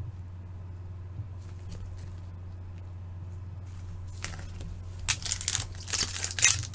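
A steady low hum, then from about four seconds in a plastic wrapper of an Upper Deck hockey card pack crinkling and tearing as it is handled and opened.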